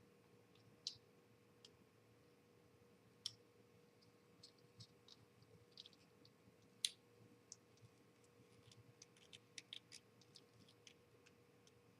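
Near silence broken by faint scattered clicks and light taps of small hard kit parts and screws being handled, with a few sharper single clicks and a quicker run of small clicks near the end. A faint steady hum sits underneath.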